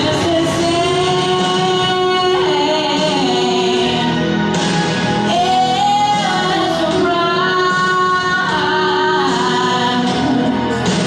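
A solo voice singing a song with long held notes and sliding pitch changes, over musical accompaniment.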